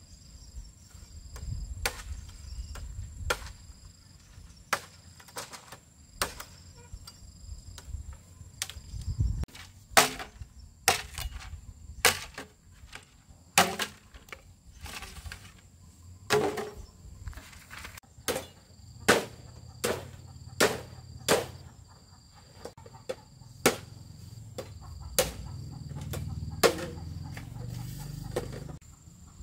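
Repeated sharp strikes, about one a second at an uneven pace, over a steady high insect drone.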